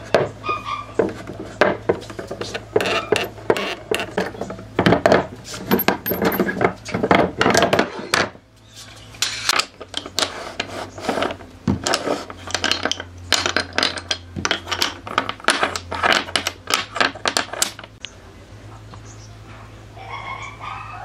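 Rapid, irregular clinking and knocking of hard objects, stopping about 18 seconds in, over a steady low hum.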